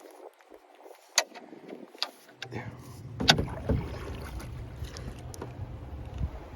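Sounds of a small fishing boat on windy water: a few sharp knocks, then a steady low rumble from about two and a half seconds in.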